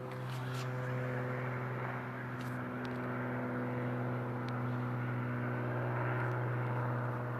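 Steady, even drone of an airplane flying overhead, over a constant low hum.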